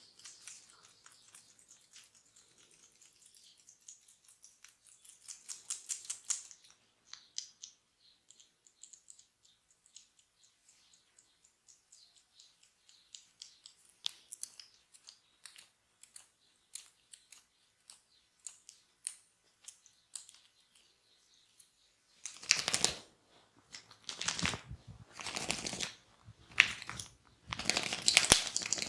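Massage hand sounds close to the microphone: faint crackling and clicking of fingers working on oiled skin and hair, then, after about twenty seconds, a series of louder rubbing strokes, each about a second long.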